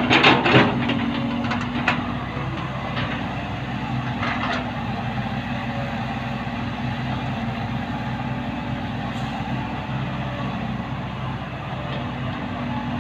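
Heavy diesel engine running steadily, with a few knocks and clatters in the first two seconds.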